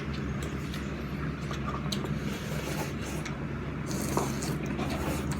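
Ramen being eaten: faint wet slurping and mouth sounds with a few light clicks of utensils or bowls, over a steady low hum.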